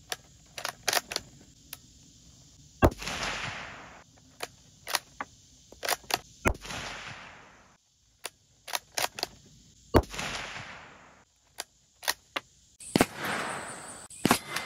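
Three unsuppressed rifle shots about three and a half seconds apart from a 16-inch-barrel bolt-action 300 Blackout rifle firing Hornady 190-grain subsonic loads, each report trailing off in an echo, with short clicks between shots. Near the end a further sharp crack comes with a rushing noise.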